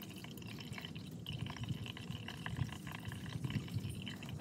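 Used engine oil draining from a car's oil-pan drain hole in a steady stream, splashing and pattering into a plastic drain pan that is already partly full of oil.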